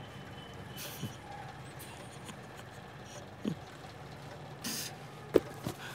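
Quiet background ambience: a faint steady low hum with a few soft, brief sounds scattered through it, and a short sharp click near the end.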